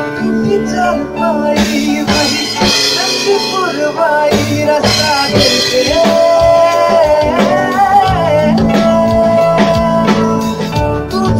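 Live band jam: a male voice sings a wavering, held melodic line over drum kit, bass guitar, lead guitar and keyboard.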